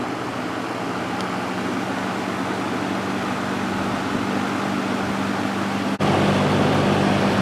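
Early-1960s GE F15W13 box fan running on high, its shaded-pole motor humming steadily under a broad rush of air as the blades speed up toward full high speed. The sound cuts out for an instant about six seconds in and comes back louder.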